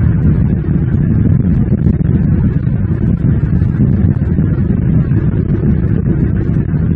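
Steady, loud, low rumbling noise with no pitch or rhythm, picked up by an outdoor nest-camera microphone.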